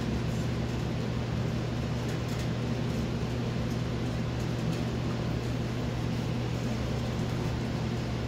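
A steady low mechanical hum with a hiss over it, even in level throughout, with a few faint ticks.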